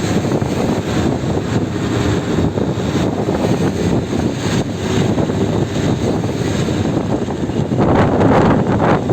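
Wind rushing over the microphone together with the noise of a heavy, rough sea, with a louder surge about eight seconds in.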